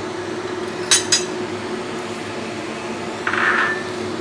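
Metal spoon stirring a pot of laksa gravy, clinking twice against the pot about a second in, then a short scrape a little past three seconds. A steady fan hum runs underneath.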